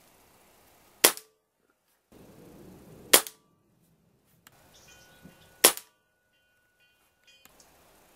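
Benjamin Marauder .177 pre-charged pneumatic air rifle firing three shots, about two seconds apart, each a single sharp report.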